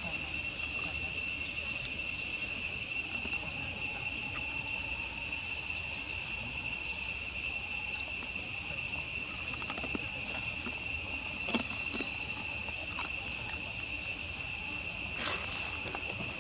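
Steady chorus of insects: a continuous high-pitched buzz that holds unchanged, with a few faint clicks in the later seconds.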